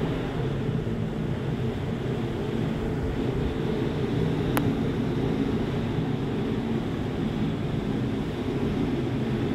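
Steady low wind rumble on the phone's microphone at the top of a lighthouse, with one sharp click about halfway through.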